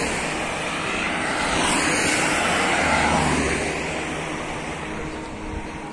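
A passing vehicle: a broad roar swells to its loudest about three seconds in, then fades away.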